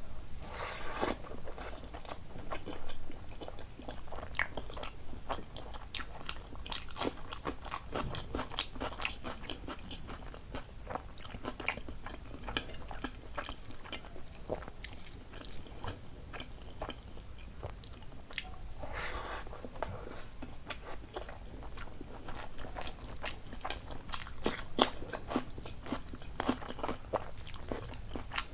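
A person eating into a close microphone: steady chewing with a dense run of sharp crunches and wet mouth clicks.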